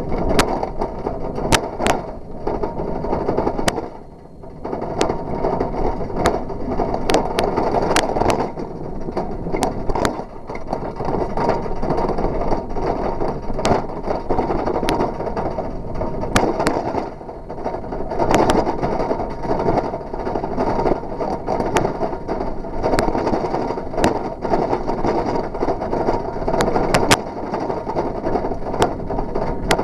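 Bicycle tyres rolling over rough, cracked asphalt: a steady rumble that dips briefly about four seconds in, with scattered sharp clicks and rattles throughout.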